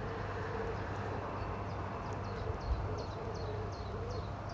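Open-air lakeside ambience: a small songbird repeats a short, high chirp about twice a second from a second or so in, over a steady low rumble. There is a soft thump a little past halfway.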